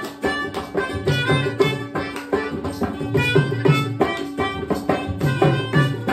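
Melodica playing a Bhawaiya folk melody in quick stepping notes, over a steady hand-drum beat.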